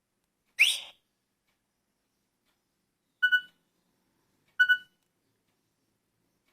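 Nokia 3250 alert tones: a short rising whistle-like chirp about half a second in, then a short electronic double beep played twice, about a second and a half apart, with dead silence between.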